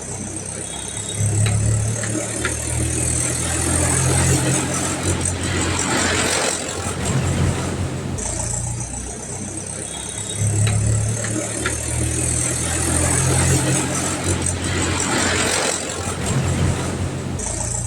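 Vehicle engine running, with the pitch of its low hum stepping up and down. The same stretch of sound repeats about every nine seconds, like a looped sound effect.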